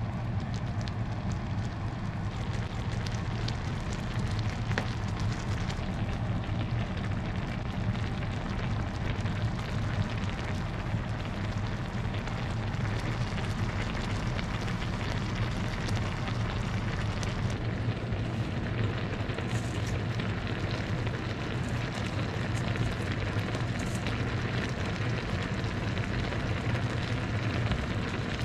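Spaghetti cooking in broth in a stainless steel frying pan, bubbling and crackling steadily at a simmer over a steady low hum.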